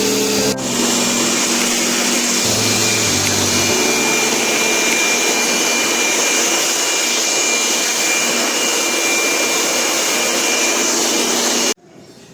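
A loud, steady electric motor whir with a rushing hiss, like a vacuum or blower, cutting off abruptly near the end.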